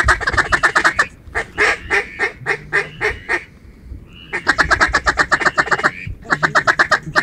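Mallard duck call blown in fast runs of short quacking notes, about ten a second, with a slower string of louder single quacks after about a second and a short pause around the middle: a hunter's feed chuckle and quacks meant to draw in mallards.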